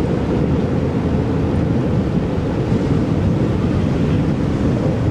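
Steady, heavy rumble of strong wind buffeting the microphone over rough, surging sea.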